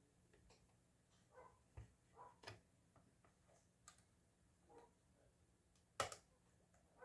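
Near silence broken by scattered faint clicks and light taps, with one sharper click about six seconds in.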